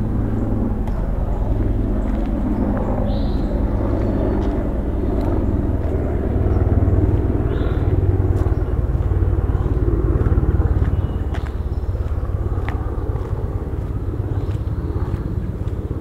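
A steady low mechanical rumble with a hum, growing louder through the middle and easing off toward the end.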